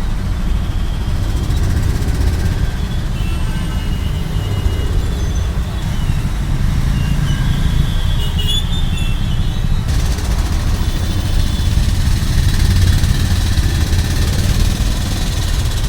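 Road traffic in the rain: vehicle engines running with a steady low rumble, and a hiss of traffic that grows louder about ten seconds in.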